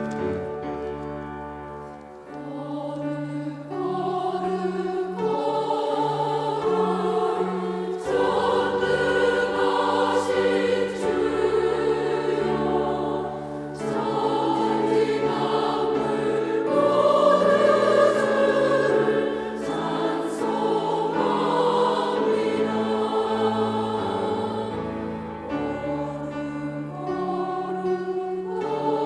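Church choir singing a hymn anthem in parts, with sustained chords over a keyboard accompaniment.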